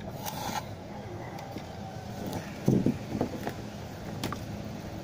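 A TV circuit board being handled and turned over on a concrete floor: a short brushing noise at the start, then a few knocks and clatters about three seconds in as it is laid down, over a steady low rumble.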